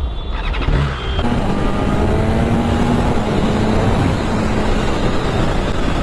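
BMW S1000RR's inline-four engine revving hard as the bike accelerates from a standstill up through the gears, with the pitch climbing in the first second and then running at high speed under a dense rush of noise.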